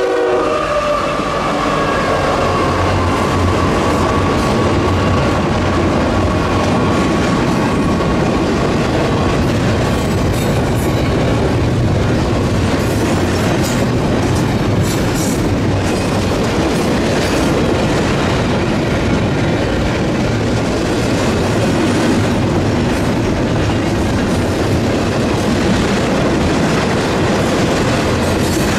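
Union Pacific double-stack container freight train passing: a steady loud rumble and clatter of steel wheels on the rails, with scattered clicks. The tail of a train horn cuts off at the very start.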